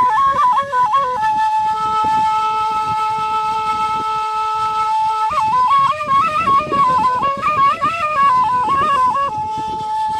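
Nay (end-blown flute) played solo. A quick ornamented melody gives way about a second in to a long held note of about four seconds. The ornamented phrases return, and another held note follows near the end.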